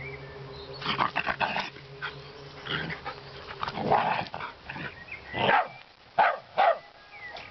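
Dogs barking and yapping in rough play: a quick string of barks about a second in, then single barks every second or so, the loudest near the end.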